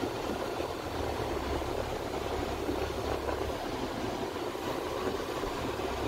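Steady low rumble and hiss of a car's cabin, with no distinct events.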